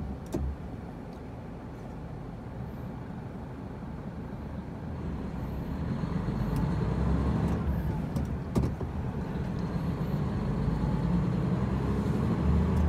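Truck engine and road noise heard from inside the cab as the truck drives and gathers speed: a steady low rumble that grows louder from about five seconds in.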